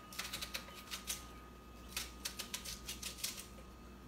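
Knife cutting a raw onion held in the hand into chunks over a blender jar: several short clusters of crisp clicks and crunches.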